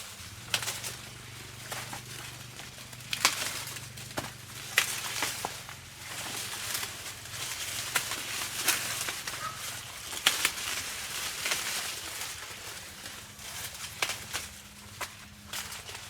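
Dry corn leaves and husks rustling and crackling, with irregular sharp snaps, as ears of corn are picked by hand.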